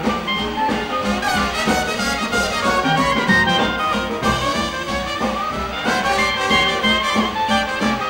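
Dixieland jazz band playing live: trumpet, trombone, clarinet and tenor saxophone over piano, bass and drums, with a steady swing beat.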